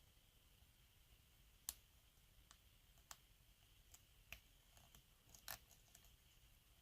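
Faint, scattered metallic clicks of a lock pick working the pin stacks of an Abus 83/45 padlock held under tension, about six light ticks spread over the few seconds, as pins are probed and give a little counter-rotation.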